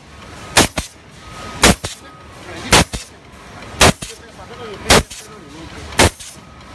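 Pneumatic hole punch on a plastic bag-making machine cycling steadily: a sharp bang about once every second, six strikes in all, as the air cylinder drives the punch through the bag film.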